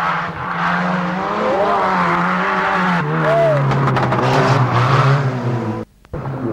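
Rally car engine running hard on a stage, with short rising-and-falling tyre squeals. The engine note drops about halfway through, and the sound cuts out for a moment near the end.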